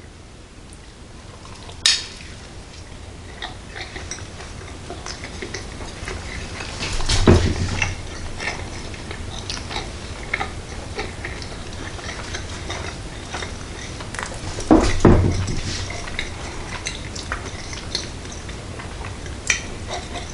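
A person biting into and chewing a burger on toasted bread, with wet mouth clicks and small crunches throughout. A sharp click comes about two seconds in, and louder bursts of noise come about seven and fifteen seconds in.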